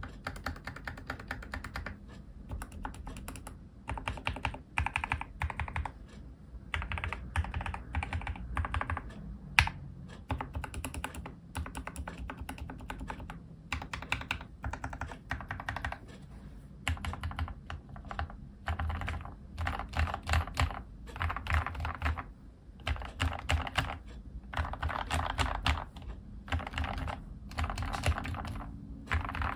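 Typing on an ObinsLab Anne Pro 2 mechanical keyboard with lubed Gateron Red linear switches, Cherry-profile keycaps and added foam dampening. Bursts of fast keystrokes come between brief pauses, with one sharper, louder keystroke about ten seconds in.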